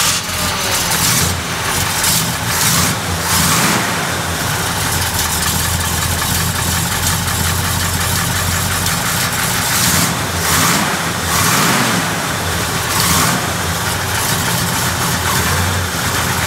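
1973 Chevrolet Camaro Z28's 350 small-block V8 running at idle, with several short blips of the throttle that swell it briefly, twice in the first few seconds and again later on.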